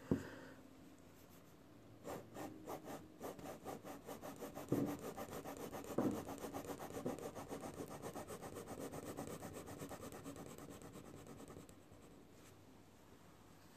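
Pencil scratching on paper in quick back-and-forth strokes, about five a second, starting about two seconds in and dying away near the end. Two louder knocks come about five and six seconds in.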